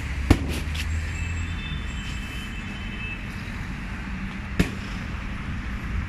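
City street traffic: a steady low engine rumble from road vehicles, with two sharp knocks, one just after the start and one near the end.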